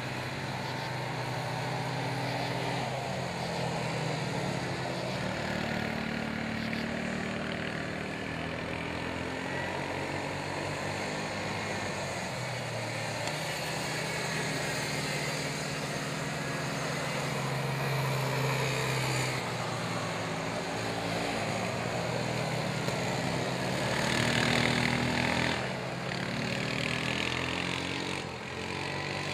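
Several small ATV (quad) engines racing around a dirt oval. Their engine notes overlap and rise and fall as the quads accelerate and pass, with a louder pass near the end.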